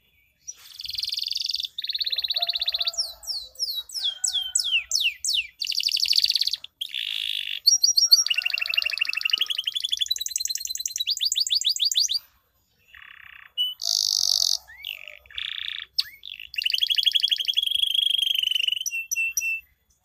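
Male domestic canary singing a long song: buzzy trills, a quick run of falling whistles, then long rolling trills of rapid repeated notes broken by two short pauses, ending in a few short chirps.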